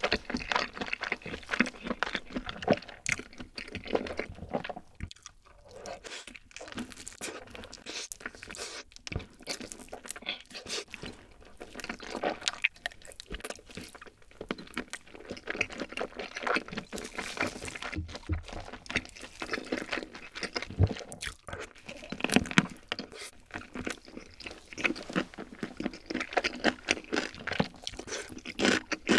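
Close-miked eating: a person chewing and biting into a grilled whole chicken leg, a continuous run of small wet clicks and chewing noises.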